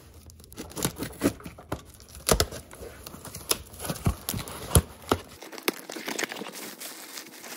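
Box cutter slitting the packing tape on a cardboard box, a run of sharp scrapes and taps, then cardboard flaps being pulled open with a softer rustle of bubble wrap for the last couple of seconds.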